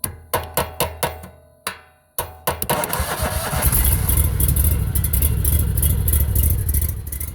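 Sharp taps on the starter of a Briggs & Stratton 37 hp EFI V-twin, about six in the first two seconds over a low hum, while the key is held in the start position. About two seconds in, the tapping shakes the stuck starter free: it turns the engine over, and the engine catches and runs steadily.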